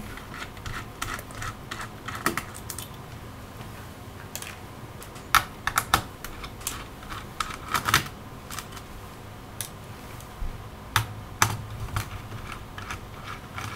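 Small screwdriver backing out the screws that hold a laptop's hard drive caddy, with scattered, irregular light clicks and taps of metal on the laptop's chassis.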